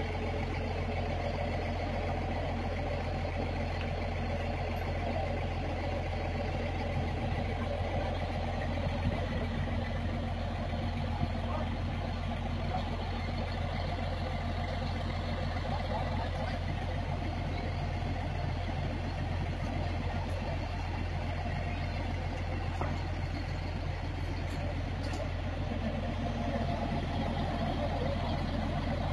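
Engine of a truck-mounted crane running steadily with a constant low drone while the crane works.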